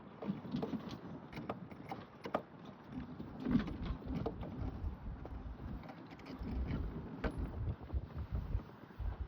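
Ice boat running over ice: a low, uneven rumble from the runners with many irregular clicks and knocks from the hull and rigging.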